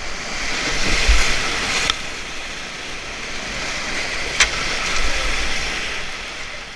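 Whitewater river rapids rushing, with low rumbling buffets on the microphone and two sharp knocks, about two seconds and four and a half seconds in.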